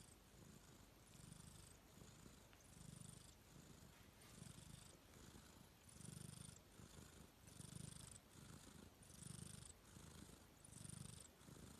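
Domestic cat snoring softly in its sleep: a faint rumbling breath repeating about every second and a half, each with a breathy hiss.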